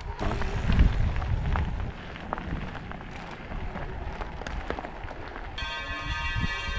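Mountain bikes rolling over a gravel track, with tyre crunch and small rattles, and wind rumbling on the camera microphone, loudest in the first couple of seconds. Near the end a steady ringing tone with many overtones comes in.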